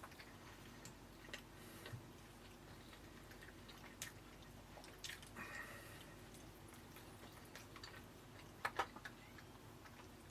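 Faint mouth sounds of a man chewing a bite of burger: scattered soft clicks and smacks, a few close together near the end, over quiet room hum.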